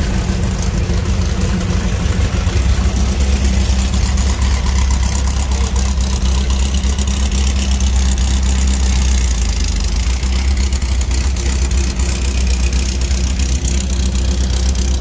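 Volkswagen Baja Bug's exposed air-cooled engine idling steadily and loud at close range, its low hum growing a little stronger about two seconds in.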